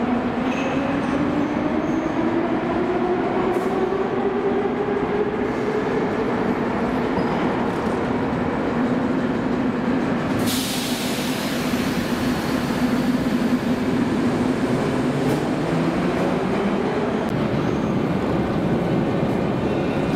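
Metro train pulling out of the station, its traction motors whining and rising in pitch as it accelerates into the tunnel. About halfway a sudden loud hiss starts and carries on. Near the end a higher whine comes in as another train approaches.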